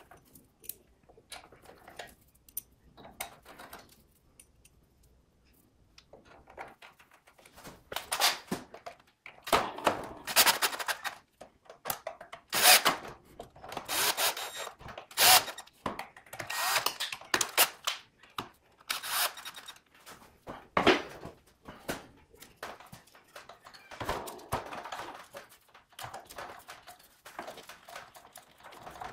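Cordless drill-driver running in short bursts, driving the screws that hold the motor end housing of a DeWalt DW717 miter saw back together after its armature bearing is replaced, with thunks and clicks of parts being handled. Light clicking at first; the drill bursts come in a busy run from about seven seconds in, then thin out near the end.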